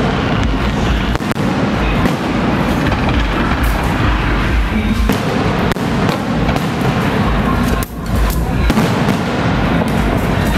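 Aerial fireworks of an electronically fired display going off overhead in a dense, unbroken barrage of crackles and pops, with low booms mixed in.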